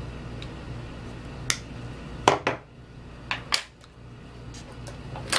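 Wire cutters snipping through the thin wires of a fan power lead: several sharp clicks, two of them close together, over a low steady hum.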